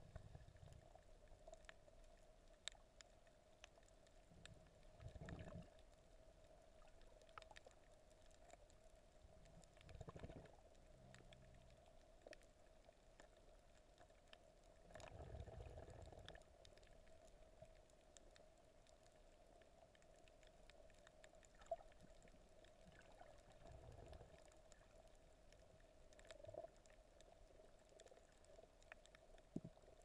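Near silence underwater: a faint steady hum, with a few soft, muffled swells of water movement.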